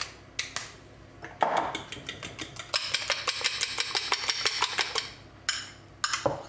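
A fork beating eggs in a glass bowl: a run of rapid clicks of metal against glass lasting a couple of seconds in the middle, with a few knocks of the bowl near the end. At the start, a couple of grinds of a pepper mill.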